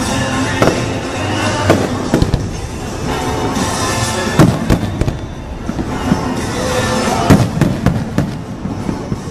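A fireworks display going off, with a rapid run of bangs and crackles and the strongest bursts about four and a half and seven and a half seconds in. Music plays along underneath.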